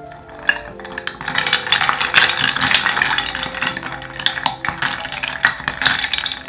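Ice cubes clattering and clinking against the sides of a glass measuring jug as a wooden spoon stirs them fast through liquid, with the liquid swishing; the stirring starts about half a second in.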